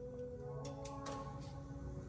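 Background music: held notes over light, sharp percussive ticks.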